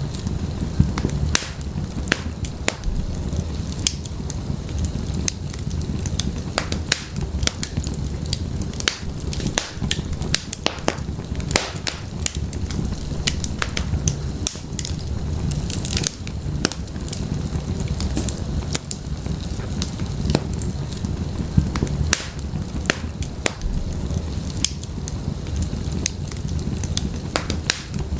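Wood fire burning in an open fireplace: firewood crackling and popping with many sharp irregular snaps over a steady low rumble of the flames.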